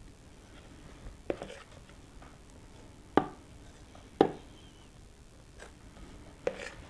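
Icing knife tapping against the dishes while spreading cream cheese icing on a cake: four sharp knocks, a second or two apart, over a quiet room.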